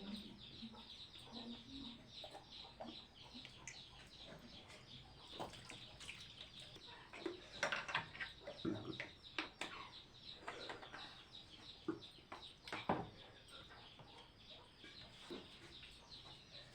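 Domestic chickens clucking, over a steady dense high chirping, with scattered sharp clicks, the loudest about eight and thirteen seconds in.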